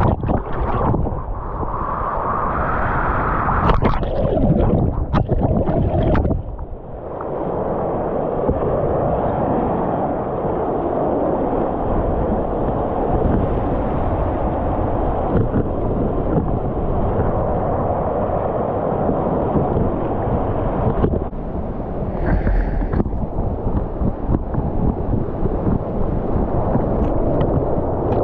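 Flooded river churning and rushing over and below a low-head dam, heard with the microphone right at the water surface and at times under it. A steady loud rush that drops briefly about six and a half seconds in.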